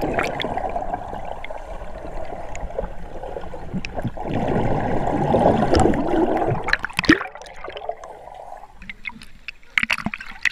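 Muffled rushing water heard with the microphone submerged, swelling about halfway through, with a knock a few seconds later. Near the end the microphone breaks the surface and small splashes and drips are heard.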